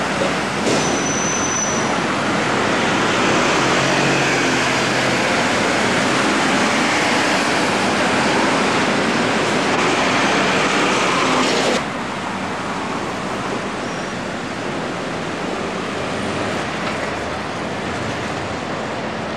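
Steady traffic and road noise of a car moving through city traffic, with no engine note standing out. The noise drops suddenly by a step about twelve seconds in and runs on quieter after that.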